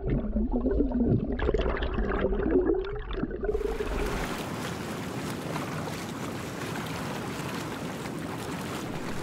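Muffled underwater bubbling and swishing of a swimmer's strokes, with wavering bubble tones. About three and a half seconds in it cuts to the steady, even wash of wind and sea water at the surface of the open sea.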